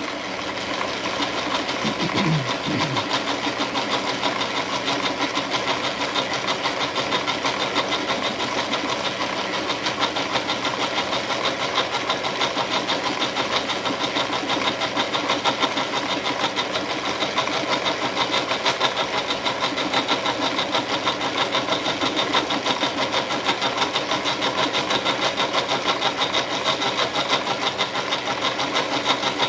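Milling machine cutter taking a continuous cut in a metal bench vise handle, fed toward full depth of the slot: a steady, fast, even rattle over a constant whine.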